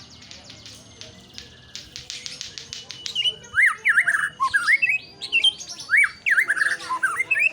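White-rumped shama singing: a fast run of high, dry repeated notes, then from about three seconds in loud whistled phrases that sweep up and down in pitch.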